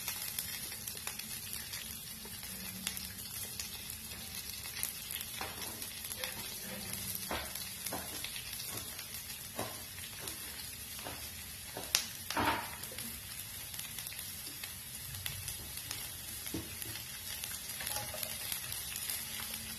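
Sliced onions and green chilies sizzling steadily in hot oil with cumin and mustard seeds in a nonstick frying pan, with scattered small pops and two louder clicks a little past the middle.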